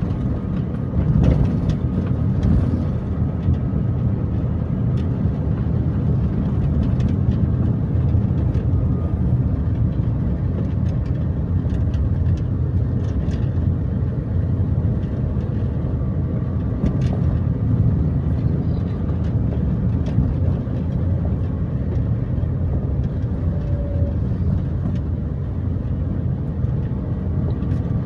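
Car cabin noise while driving: engine and tyre noise heard from inside the car as a steady, low, even rumble.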